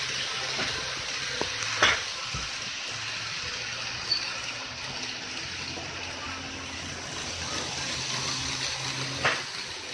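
N-gauge model trains running on a layout's track: a steady rushing hiss with a faint low motor hum, broken by two sharp clicks, one about two seconds in and one near the end.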